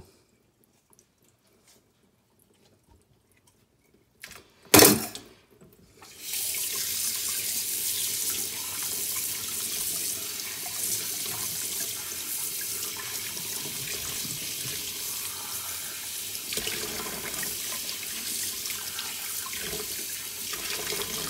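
Almost nothing for about four seconds, then a single loud knock. From about six seconds in, a kitchen tap runs steadily into a stainless steel sink, splashing over a roasted red pepper and into a plastic tub as the seeds are rinsed out.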